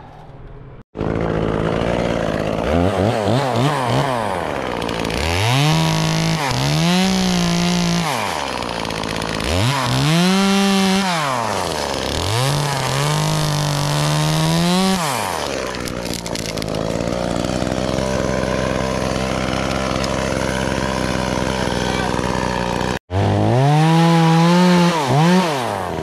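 Two-stroke chainsaw cutting tree limbs, its engine revved up to full speed and let back down again and again. Partway through it holds a steady speed for several seconds, then revs up once more near the end. The sound breaks off abruptly twice.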